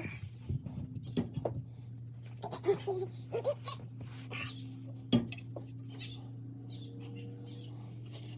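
Metal exhaust pipe sections clinking and knocking as they are handled and fitted together, with a few brief ringing clanks, over a steady low hum.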